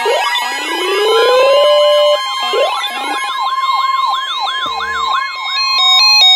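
Several electronic sirens sounding over one another: rising and falling wails, then a fast yelp of about three sweeps a second. Near the end comes a stepped run of alternating beeping tones.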